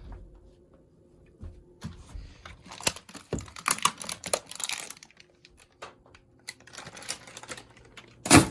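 Keys of a new mechanical keyboard clacking as it is typed on, in irregular runs of clicks. One loud knock near the end.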